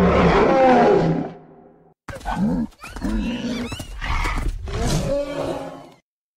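Animal roar sound effect, the kind used for a dinosaur such as Triceratops: one long roar, then after a brief silence a run of several shorter calls with wavering pitch that stop abruptly.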